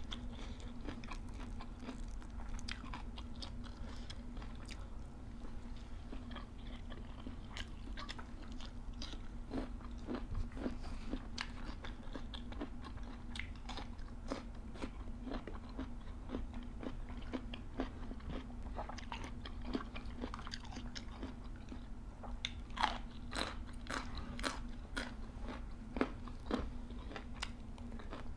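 Two people chewing mouthfuls of fresh raw greens and vegetables: a steady run of crisp crunches, with a few louder bites near the end, over a steady low hum.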